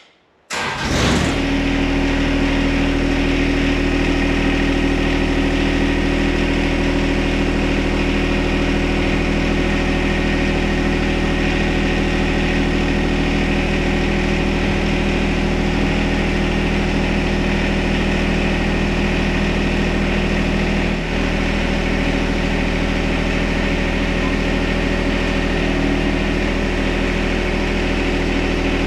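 John Deere 1025R subcompact tractor's three-cylinder diesel engine starting about a second in and then running steadily.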